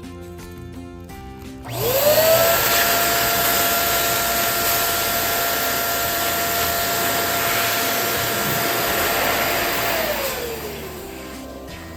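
Electric balloon inflator blowing air into a balloon: its motor spins up about two seconds in, runs at a steady hum with a rush of air for about eight seconds, then winds down near the end.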